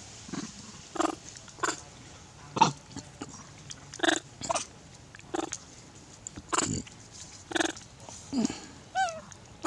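Baby monkey making a series of short sharp vocal sounds, about one a second, with a short wavering squeak near the end.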